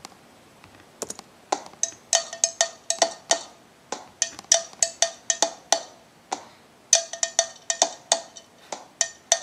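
A run of sharp taps or clicks on a hard object, a few per second in an uneven rhythm, starting about a second in, with brief pauses.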